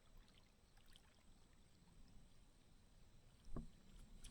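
Near silence: faint outdoor background with a few faint clicks and one short tap near the end.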